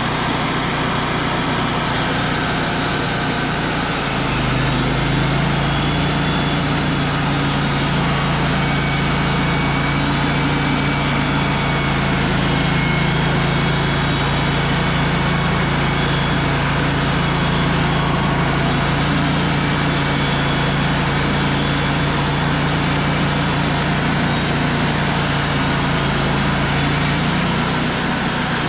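Wood-Mizer LT35 band sawmill running steadily. About four seconds in its sound deepens and strengthens, holding until shortly before the end, as the blade takes a cutting pass through the log.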